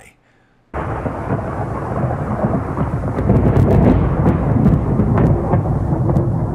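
Thunderstorm: rolling thunder with rain, starting suddenly about a second in, with a few sharp crackles near the middle.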